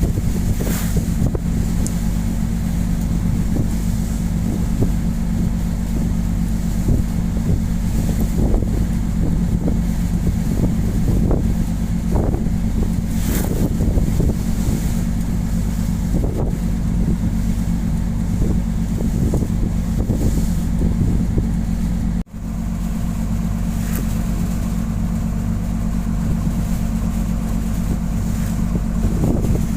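A boat's engine running steadily as strong storm gusts buffet the microphone in uneven surges. The sound drops out for an instant about two-thirds of the way in.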